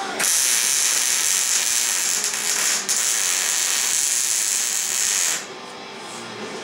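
Electric welding arc hissing steadily for about five seconds, with a brief break near the middle, then cutting off.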